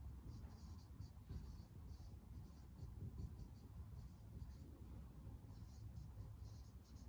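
Faint, irregular scratching strokes of writing or drawing on a surface.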